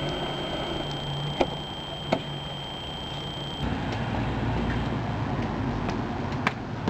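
A car engine running, under a steady hiss of night air. Sharp clicks come about one and a half seconds in, again just after two seconds, and near the end. About halfway through the background changes abruptly to a deeper rumble.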